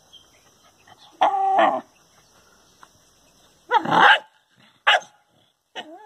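Dog vocalizing at its own reflection in a mirror: a short whine about a second in, then two barks, the first longer and louder, around four and five seconds in, and the start of another whining cry near the end.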